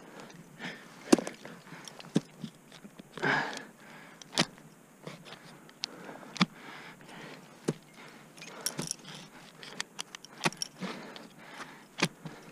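Ice tools plunging into deep snow while the climber's metal gear clinks, with sharp clicks every second or two over a soft scraping of snow. One heavy breath comes about three seconds in.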